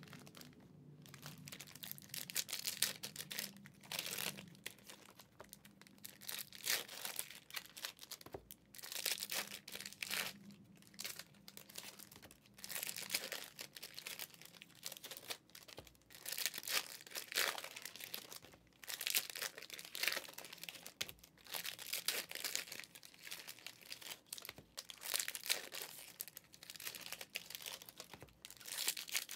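Foil trading-card packs crinkling and rustling as they are handled and set down in stacks, in irregular short bursts.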